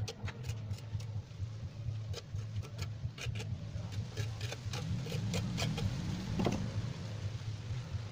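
Trowel scraping and tapping on wet cement mortar as it is smoothed: scattered short scrapes and clicks, one stronger scrape about six and a half seconds in, over a steady low hum.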